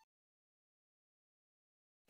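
Silence: the audio track is empty, with no sound at all.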